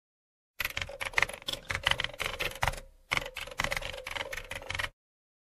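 Typewriter keys clacking in rapid, uneven strokes: a typing sound effect for text appearing letter by letter. It starts about half a second in, pauses briefly a little before the three-second mark, and cuts off abruptly near the end.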